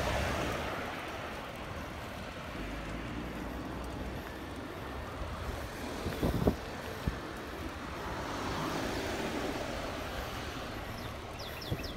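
Wind rushing over the microphone and road noise while riding a bicycle slowly uphill, with a small van passing by and pulling ahead around eight to nine seconds in.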